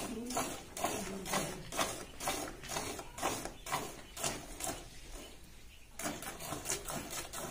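Hand-milking a cow: jets of milk squirting from the teats into a partly filled plastic bucket, a rhythmic swishing about two strokes a second, with a short pause about five seconds in before the strokes start again.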